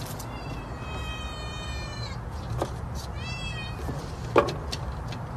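Domestic cat meowing twice: a long, level meow of about two seconds, then a shorter one that rises and falls. About four seconds in comes a sharp clatter of window-blind slats as the cat pushes through them.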